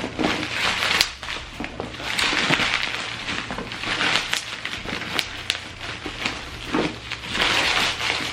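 Plastic wrap being torn and crinkled off a box, an irregular run of crackles and sharp snaps.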